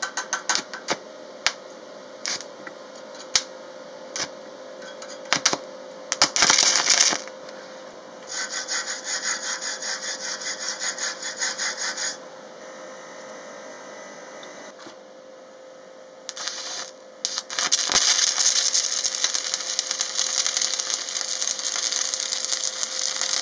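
Stick (MMA) welding with a coated aluminium electrode. The rod scratches and sputters in several short, failed attempts to strike the arc, which is a struggle to strike on aluminium. Midway, a wire brush scrubs the aluminium plate in quick rhythmic strokes for about four seconds, and near the end the arc catches and crackles steadily for the last five seconds or so.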